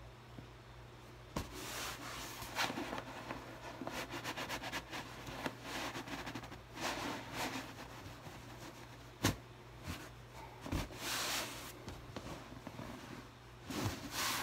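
Hands rubbing and pressing on a large latex balloon under a shirt: squeaky rubs on the latex and fabric rustling, broken by a few sharp taps, the loudest about nine seconds in.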